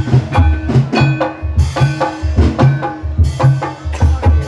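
Gamelan music for an ebeg horse-dance, with loud hand-drum strokes in a driving rhythm under ringing pitched tones.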